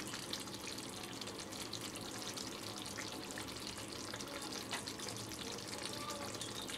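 Pabda fish in mustard gravy simmering in an iron kadai on a low gas flame: a steady, faint sizzle with small crackles and pops.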